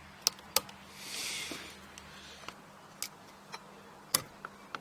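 Sharp plastic clicks and taps, four or five spread out, as a flathead screwdriver pries at the yellow locking clip of the connector plug behind a Subaru WRX STI steering wheel's horn pad. A brief hiss comes about a second in.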